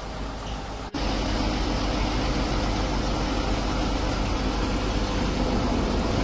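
An engine idling steadily. About a second in, the sound cuts off sharply and comes back at once, a little louder.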